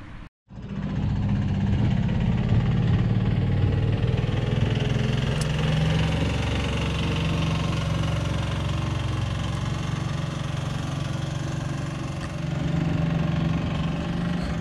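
Vehicle engine running steadily at low revs, a low even hum that starts abruptly just under a second in.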